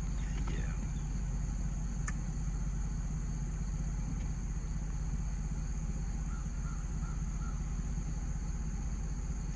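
Steady high-pitched drone of insects over a low, even rumble, with a single faint click about two seconds in.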